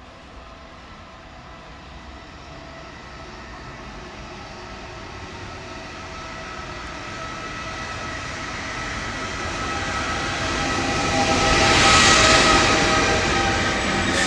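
Electric train approaching along the track, growing steadily louder with a steady whine over the rumble of its wheels, and loudest about twelve seconds in as it reaches the spot.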